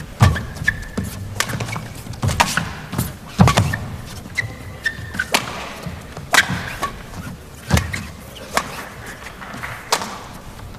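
Badminton rally: sharp racket strikes on the shuttlecock about once a second, mixed with thuds of footwork and a few short high squeaks of shoes on the court.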